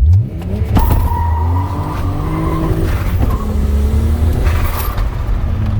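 Turbocharged VR6 engine accelerating hard, its pitch rising through the gears with shifts about a second in and about three seconds in. A short hiss comes near the end.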